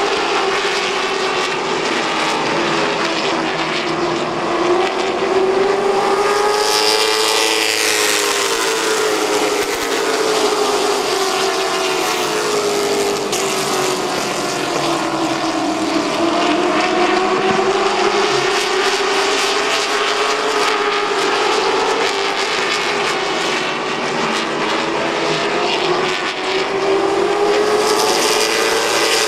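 Stock car engines of a racing field lapping the oval at speed. Their pitch rises and falls in slow waves, with one higher sweep about seven seconds in as cars pass close.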